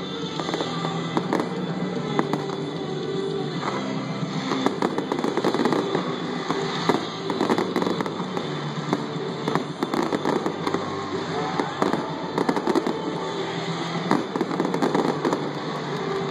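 Aerial fireworks display with a rapid, dense series of sharp bangs and pops, over music playing.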